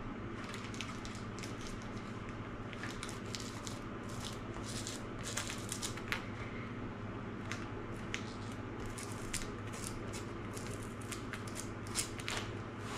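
Hot glue being worked into a carpet seam with an electric glue gun's tip and a plastic brush handle: irregular scraping, crackling and small clicks, over a steady low hum.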